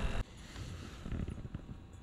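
A boat's running noise with a steady whine cuts off abruptly just after the start. It is followed by a quieter wood campfire crackling with small scattered pops over a low rumble.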